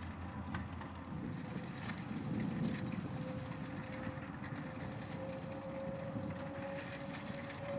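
Fendt 724 Vario tractor's six-cylinder diesel engine running steadily while ploughing, a low rumble with a thin whine that climbs slowly in pitch through the second half.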